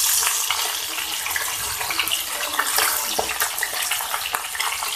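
Rohu fish pieces sizzling as they fry in hot oil in a kadai while being turned with a wooden spatula. The sound is a steady hiss with scattered crackles and pops, loudest in the first second.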